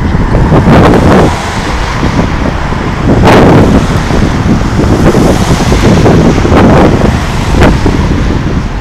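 Strong wind buffeting the microphone: a heavy, loud rumble that rises and falls, with a few sharper knocks or gusts.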